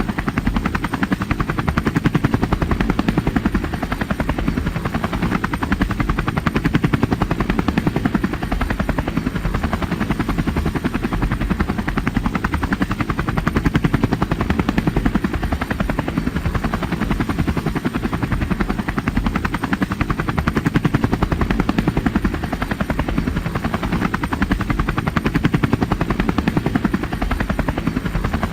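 Helicopter in flight, its rotor blades chopping rapidly and evenly. The sound swells and eases slightly every few seconds.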